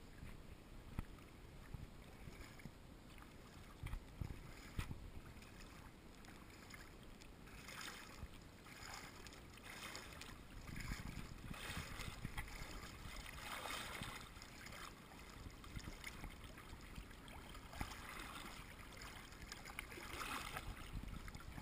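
Faint water lapping and splashing around an inflatable air mattress drifting on a river, with irregular small splashes becoming more frequent from about eight seconds in.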